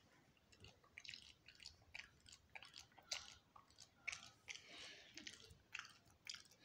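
Faint, irregular rustling and crackling from a black zip-up jacket's fabric being handled and shifted, with soft clicks throughout.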